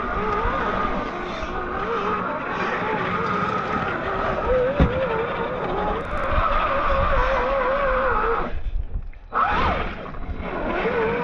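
Electric motor and gearbox of a DF Models DF4S Toyota 4Runner RC crawler whining, its pitch wavering up and down with the throttle as the tyres churn through mud. The sound drops out briefly about three quarters of the way through, then comes back.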